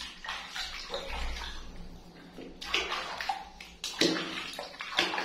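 Water splashing and sloshing in a plastic bathtub as a hand scoops and pours it over a monkey, with sharper splashes about three and four seconds in.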